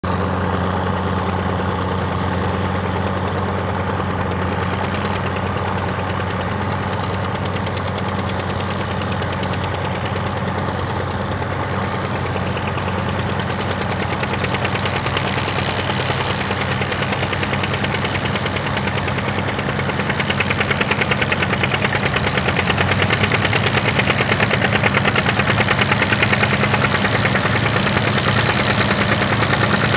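John Deere 1010 tractor's four-cylinder engine running steadily under load while pulling a plow, with a fast, even beat of firing pulses. It grows louder in the last third as the tractor comes closer.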